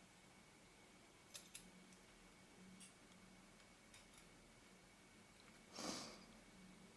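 Near silence broken by a few faint clicks of small lens parts being handled, and a short scraping rustle about six seconds in.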